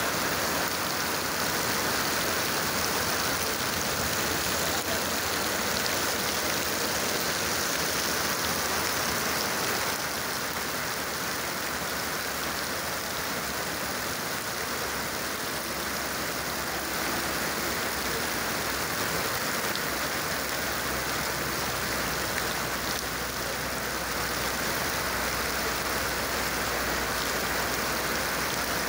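Heavy rain falling steadily, a dense even hiss of rain with running water. A low rumble joins in about two-thirds of the way through.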